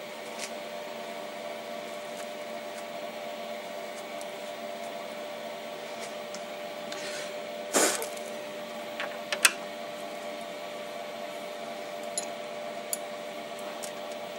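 Steady hum of a Denford Orac CNC lathe standing with its spindle stopped. About eight seconds in there is a loud rustle as a tangle of stringy steel swarf is pulled off the part, followed by a few light clicks of handling.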